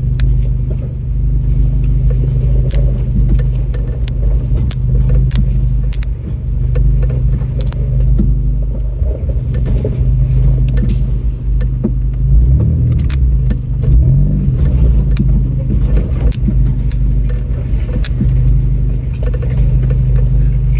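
Off-road 4x4's engine running low and steady as it crawls over a rough trail, with frequent sharp clicks, knocks and rattles from the vehicle jolting over rocks. The engine note wavers briefly a little past the middle.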